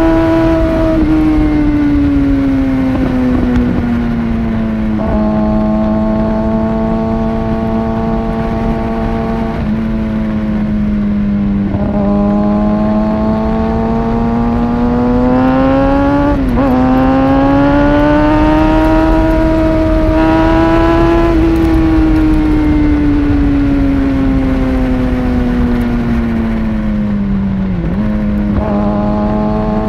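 Kawasaki ZX-6R 636's inline-four with a Two Brothers exhaust under way, its note climbing and easing off with the throttle, over a steady rush of wind. The pitch dips sharply about halfway through, then climbs again, and does so once more near the end.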